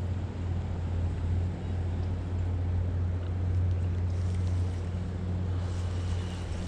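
Strong wind buffeting the microphone: a steady low rumble with a hiss over it.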